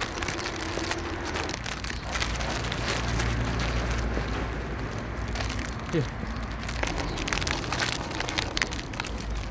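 Outdoor location sound: a low rumble with scattered crackling and rustling, and a short falling squeak about halfway through.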